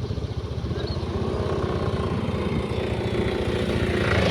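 Tour bus engine running with a rapid low throb, growing louder near the end as a rush of hiss swells up.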